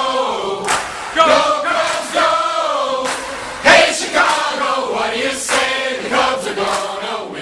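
Background music: a group of men's voices singing a chanted, cheer-like song over a band with a steady drum beat.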